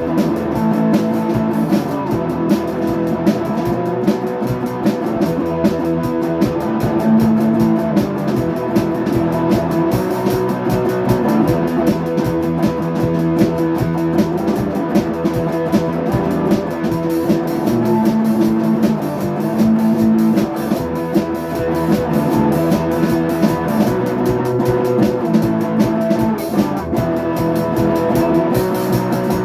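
Rock music: guitar and a drum kit playing together with a steady beat.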